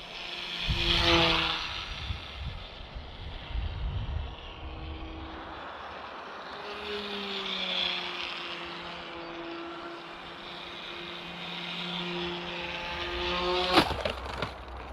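Small electric RC plane's brushless motor and two-blade propeller buzzing in flight, the pitch shifting with throttle and passes, loudest about a second in. Near the end a sharp knock, after which the buzz stops.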